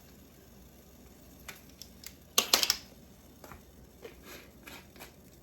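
Light clicks and a short, louder clatter about two and a half seconds in, from small kitchen items being handled while a teaspoon of Worcestershire sauce is measured out.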